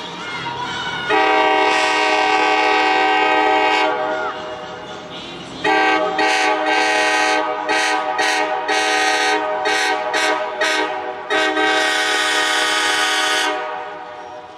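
Diesel locomotive's five-chime Nathan air horn blowing for a grade crossing. A long blast, then another long blast that breaks into a rapid string of short toots, then a final long blast.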